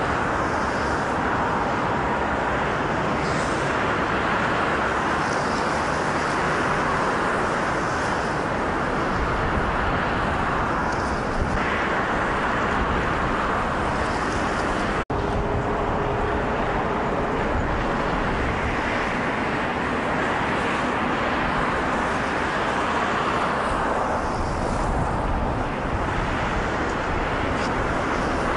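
Steady city traffic noise, with no break in it except a momentary dropout about halfway through.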